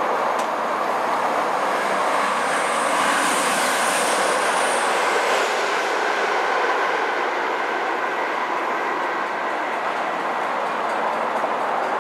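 A train running on a nearby railway: a steady rumbling rush, with a high wheel squeal for a couple of seconds about three seconds in.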